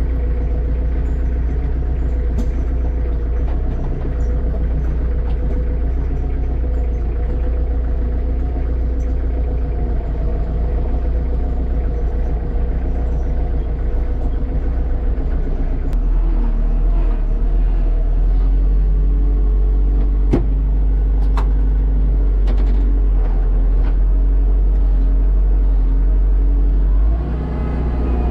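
Kubota tractor's diesel engine running steadily, heard from inside the cab as the tractor drives. Its low drone grows louder about halfway through and dips briefly near the end, with a few light clicks in between.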